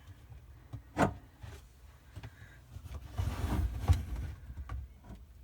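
Handling noise from taking apart a faucet's brass supply fitting: a sharp click about a second in, then a couple of seconds of low scraping and knocking.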